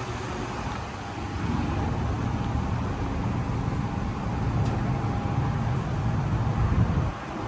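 Outdoor air-conditioner condenser units running: a steady low compressor hum under fan noise, with a faint high tone.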